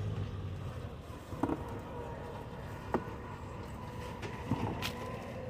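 A steady low rumble with a few short sharp knocks and clicks, roughly every second and a half.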